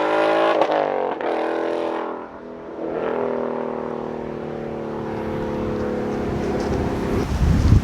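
Ford Mustang V8 exhaust under acceleration, its note broken twice in the first second or so, then easing and settling into a steadier note that climbs slowly. Wind rumbles on the microphone near the end.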